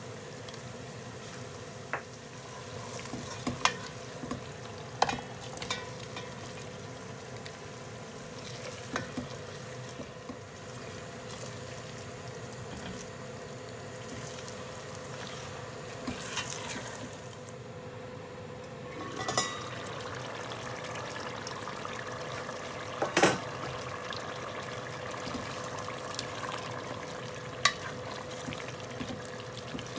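A spatula stirring a chilli spice paste, then diced tofu, tempeh and potatoes, frying in a large stainless steel stockpot: a steady sizzle with scraping and sharp knocks of the spatula against the pot, the loudest about 23 seconds in.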